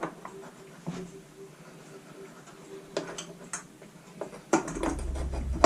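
Scattered light clicks and taps of small parts and hand tools being handled during reassembly of a backpack leaf blower. Near the end a steady low hum starts up.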